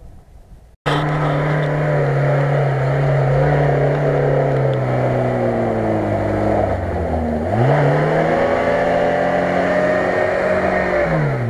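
A motor running with a steady pitched hum. Its pitch sags slowly, dips and sweeps sharply back up about seven seconds in, then falls away steeply at the end. It starts abruptly about a second in.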